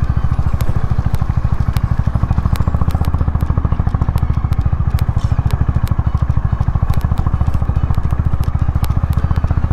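Honda H'ness CB350's air-cooled single-cylinder engine running steadily at low riding speed, its firing pulses coming in an even, rapid beat. Scattered sharp ticks of gravel under the tyres sound over it.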